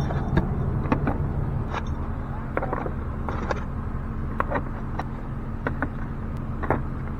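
Scattered light clicks and knocks of eggs and their packaging being handled and packed into a compact container, over a steady low hum.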